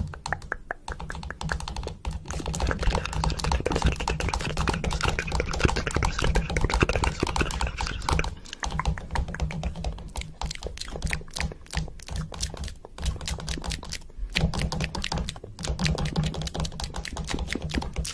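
Rapid, irregular clicking or tapping, like fast keyboard typing, over a low steady hum. The clicking thins out briefly about halfway through and again about three-quarters of the way in.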